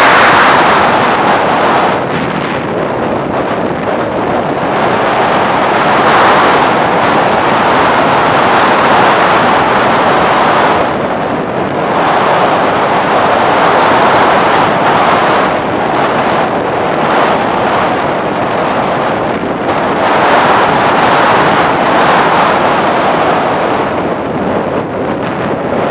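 Loud wind rush on the microphone of a camera riding on a radio-controlled FPV Raptor plane in flight, a steady roar of airflow that swells and fades every few seconds.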